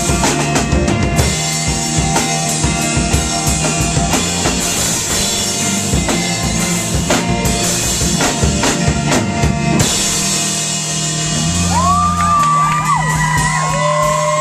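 Live rock band with drum kit, electric guitar, bass and piano playing hard, the drums hitting densely. About ten seconds in the drumming stops and a chord is left ringing over a held bass note, as the song closes.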